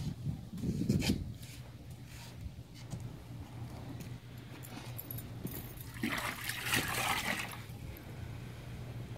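A wet sponge being squeezed out over a bucket: water trickles and splashes for about a second and a half near the end. A steady low hum runs underneath.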